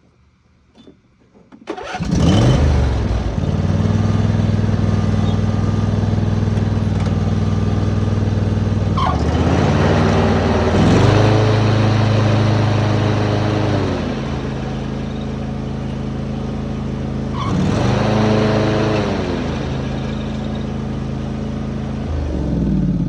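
Craftsman T3000 riding mower's engine starting about two seconds in, then running steadily. Its speed changes audibly twice, around the middle and again later. It runs with the mower blades working and no belt screech, a sign that the newly replaced deck belt runs true.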